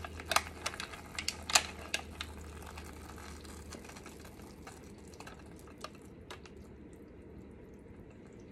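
Hot caramel being poured from a stainless steel saucepan into a parchment-lined loaf pan: a cluster of sharp clicks and ticks in the first two seconds or so, then fainter scattered ticks as the pour goes on.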